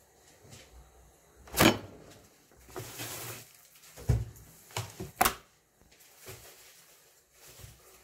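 Kitchen handling noises: a few sharp knocks and clatters, the loudest about one and a half seconds in and a quick cluster between four and five and a half seconds in, with a short rustling hiss around three seconds.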